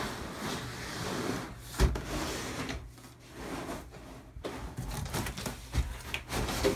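Hard black plastic training-dummy body being lifted out of a cardboard box, its plastic rubbing and scraping against the cardboard flaps, with a sharp knock about two seconds in and smaller bumps near the end.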